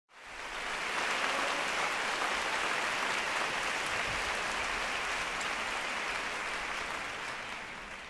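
Audience applause, dense and steady, swelling in over the first second and slowly fading near the end.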